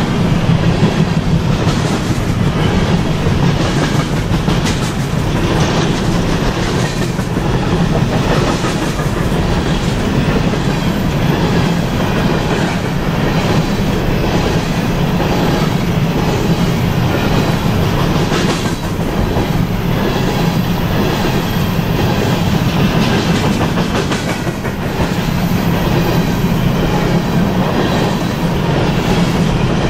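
Freight train of open-top hopper cars rolling past close by: a steady rumble of wheels on rail, with irregular clacks as the wheels cross the rail joints.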